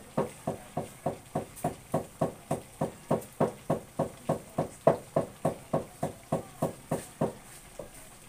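Even, rhythmic knocking of a kitchen utensil, about three or four strokes a second, each with a short ring; it stops a little after seven seconds in.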